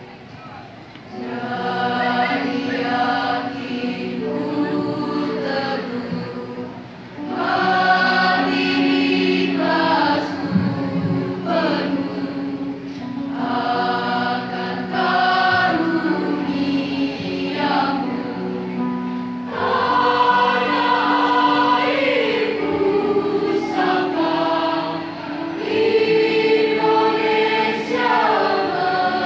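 School choir of girls and boys singing a slow, hymn-like Indonesian song in parts, with electronic keyboard accompaniment. The singing comes in long phrases with short breaths between them.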